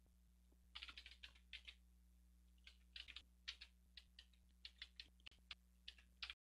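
Typing on a computer keyboard: a faint run of irregular key clicks, starting about a second in.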